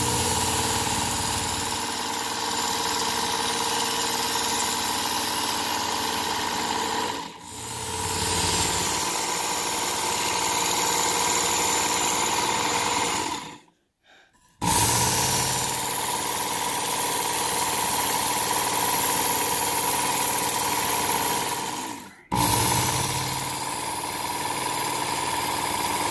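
Work Sharp Ken Onion Edition electric belt knife sharpener running with its fine belt: a steady motor whine with the abrasive belt rubbing along a knife blade drawn through the guide. It stops for about a second near the middle and dips briefly twice more.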